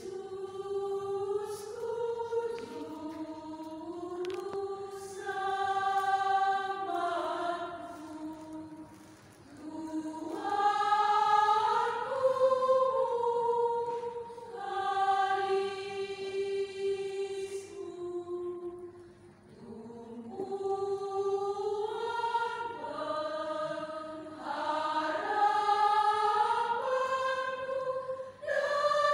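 Women's choir singing a hymn, held notes in long phrases with brief pauses between the lines.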